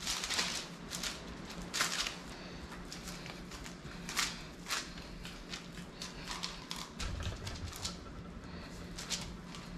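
Hands pressing and patting sticky lard pie pastry flat on parchment paper, the paper crinkling and rustling in irregular short strokes.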